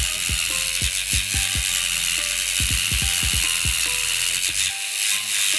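Dremel rotary tool running with a grinding stone pressed against a broken stud in an engine head: a steady high-pitched grinding whine. Background music with a thumping beat plays under it.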